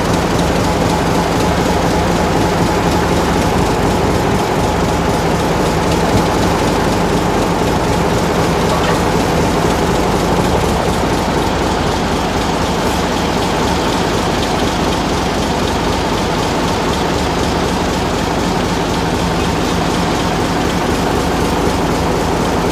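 Diesel locomotive X20's engine running with a steady drone as it shunts slowly up to the carriages.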